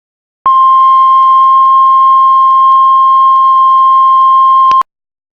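Heart monitor flatline: one long, steady beep tone that starts suddenly about half a second in and cuts off after about four seconds, the signal that the heart has stopped.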